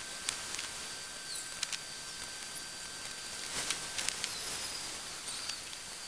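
Steady hiss with a faint high whine, broken by scattered sharp clicks and a few short high chirps, with a tight cluster of clicks a little before the middle.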